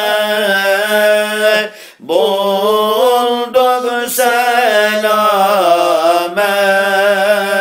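Sufi devotional chanting of a Turkish hymn (ilahi, zikr): a long, drawn-out sung line that bends in pitch over a steady low drone. It breaks off briefly about two seconds in, then resumes.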